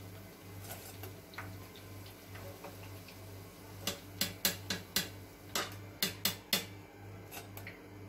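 Perforated metal skimmer clinking against the rims of a frying pan and a steel saucepan as fried jalebis are lifted from the oil and dropped in: a string of sharp taps in the second half, over a low pulsing hum.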